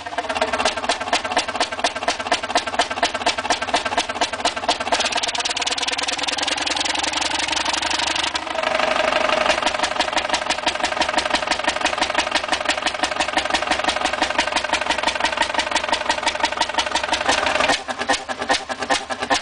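1936 Fairbanks Morse Model 32D engine running with a fast, even firing beat. The sound changes abruptly about eight seconds in and again near the end.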